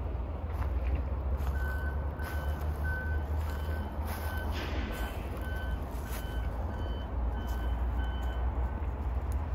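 Backup alarm of a reversing truck or piece of heavy equipment, beeping about twice a second from a second and a half in until near the end, over a steady low rumble.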